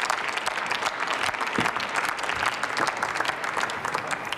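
Applause from a seated assembly of parliament members, many hands clapping together, tapering off at the end.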